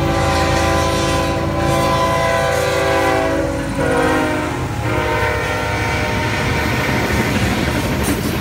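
Freight locomotive's air horn sounding a steady chord as a loaded coal train passes close by; the chord drops lower as the lead locomotive goes by about four seconds in and stops about a second later. After that the locomotives and loaded coal hopper cars roll past with wheels clacking over the rails.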